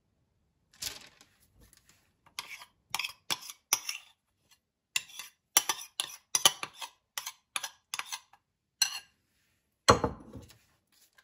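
Metal spoon clinking and scraping against a ceramic bowl as a creamy filling is scooped out, a string of short sharp clinks, ending about ten seconds in with one louder, heavier knock.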